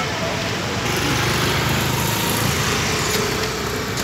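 A small petrol engine running steadily, mixed with street traffic noise.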